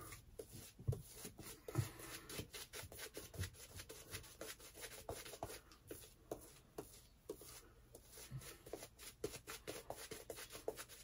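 Simpson Trafalgar T3 synthetic shaving brush working lather over the face and beard, a faint, quick run of soft rubbing strokes.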